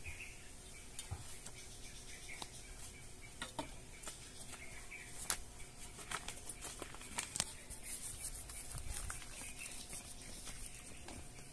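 Hands firming potting soil in a black plastic grow bag: scattered soft crackles and rustles of the plastic and crumbling soil, busiest in the middle.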